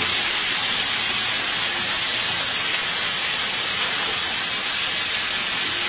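Food sizzling in a wok: a steady, even hiss.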